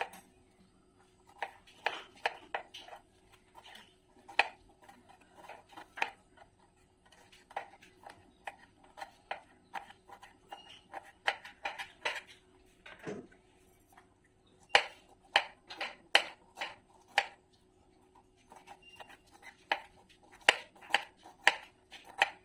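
Kitchen knife finely chopping cauliflower on a round printed chopping board: sharp taps in quick runs of about two a second, broken by short pauses.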